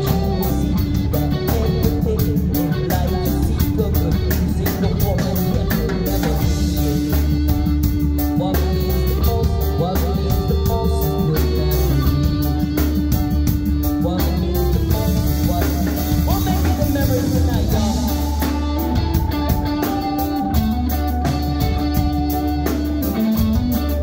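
Live rock band playing an instrumental jam: drum kit keeping a steady beat under bass, keyboards and electric guitars, with a sustained melody line that bends and shifts in pitch over it.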